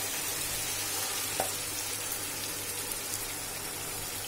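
Marinated chicken pieces and onion frying in hot oil in a kadai, a steady sizzle, with one small click about a second and a half in.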